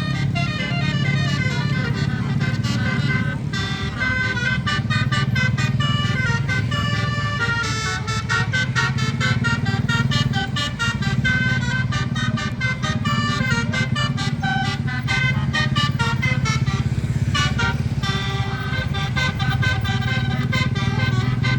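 A bus's basuri musical horn plays a classic orchestral tune as a fast run of short notes, with a brief break about seventeen seconds in. The bus engine runs steadily underneath as a low hum.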